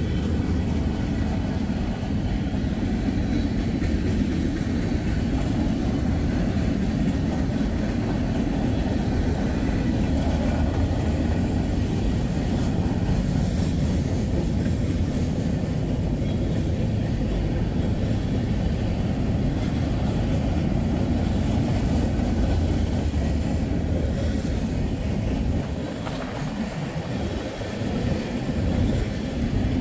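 Freight train cars rolling past, wheels rumbling steadily on the rails. The low rumble eases somewhat about 26 seconds in.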